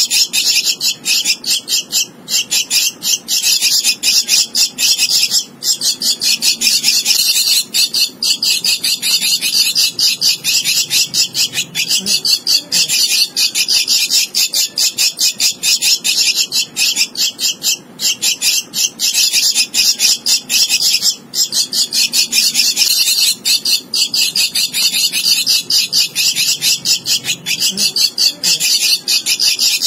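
Javan myna nestling begging: a fast, unbroken run of short, harsh, high calls with its beak gaping, pausing briefly every few seconds.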